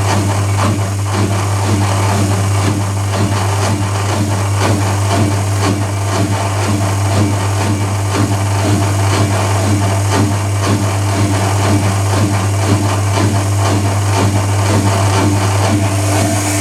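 Privileg Compakt 92 washing machine and AEG Lavatherm CE tumble dryer running together: a steady low motor hum with an even, repeating churning rattle over it.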